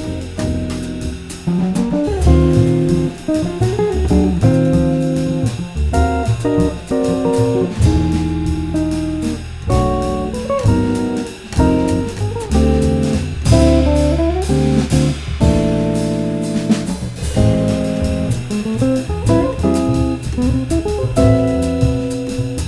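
Jazz trio of electric guitar, double bass and drum kit playing. The guitar carries a moving single-note line with pitch bends over walking bass and steady cymbal work.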